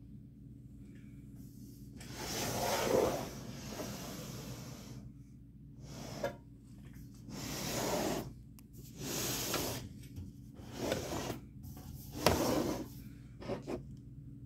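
Handling noise as the cassette deck is turned and filmed around to its back: a string of irregular rubbing and scraping bursts, with a sharper knock about twelve seconds in. A low hum runs underneath.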